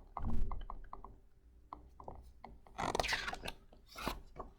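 A picture book being handled and a page turned: small clicks and a quick rattle near the start, then paper rustling about three seconds in and again near the end.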